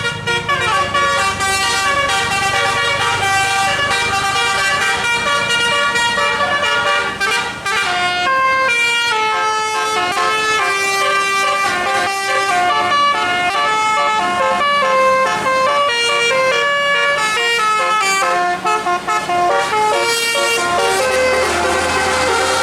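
Bus musical air horn ('telolet') playing a long tune, its multi-note horns stepping quickly from one note to the next.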